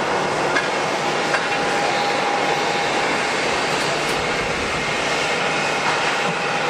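Jet airliner engines running, a steady rushing noise with a faint whine held through it.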